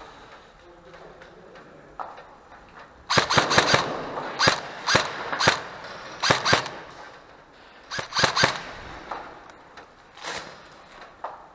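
Airsoft guns firing: a rapid burst about three seconds in, then a string of single shots, another short burst about eight seconds in, and a few scattered shots near the end.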